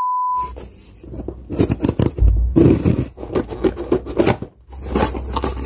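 A steady test-card beep for about half a second at the start, then scissors snipping and cutting open a small cardboard package, with rustling and scraping of the packaging.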